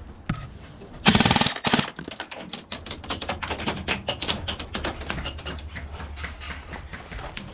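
Airsoft electric light machine gun, a Krytac LMG, firing a loud full-auto burst of rapid clicking shots about a second in. It is followed by several seconds of quieter, irregular rapid clicking from further airsoft fire and BB strikes.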